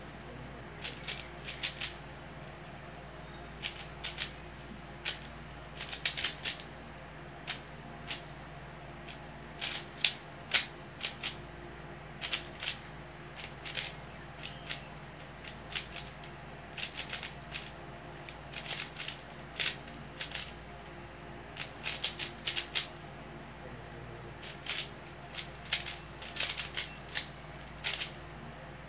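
A 4x4x4 speed cube being turned by hand during a timed solve: quick runs of plastic clicks and clacks as the layers are turned, in irregular bursts with short pauses between them.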